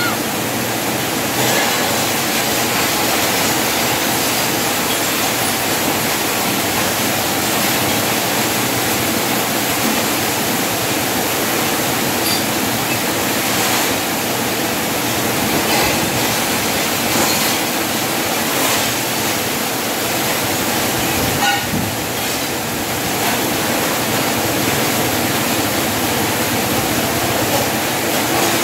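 Steady, even rushing outdoor background noise with no clear pitch, and a faint brief knock about three-quarters of the way through.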